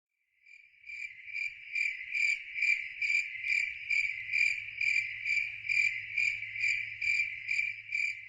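Cricket chirping in an even rhythm, a little over two high-pitched chirps a second, fading in about half a second in.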